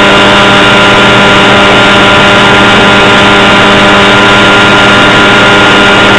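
Model airplane's engine and propeller running steadily at constant speed, loud and close to the onboard microphone.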